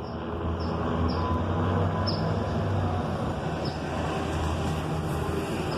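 Formation of piston-engine propeller planes flying over, giving a steady low drone.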